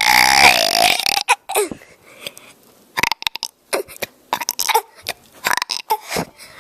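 A six-year-old child burping: one long, loud burp of about a second to open, then a few short, quieter sounds.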